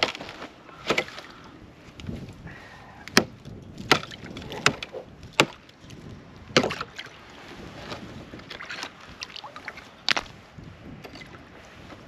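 Frozen animal water being broken up: a series of sharp cracks and knocks as thick ice is struck, about seven hard hits at irregular spacing, most of them about a second apart.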